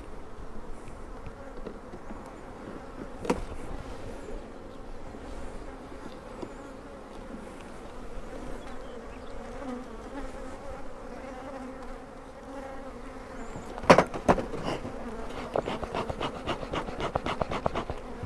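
Honeybees humming steadily around an open hive. There is a single sharp knock about three seconds in, then a run of knocks and clicks near the end as wooden hive frames are handled.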